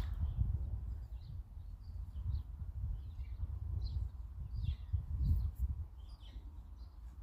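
Small birds chirping now and then over a steady low rumble, which swells briefly about five seconds in.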